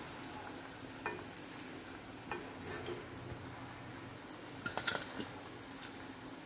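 Metal skimmer clinking lightly against a steel kadai and a steel plate while potato kababs are lifted out of the oil, with a faint steady sizzle of hot frying oil behind. There are a few single clinks, then a quick cluster of them about five seconds in.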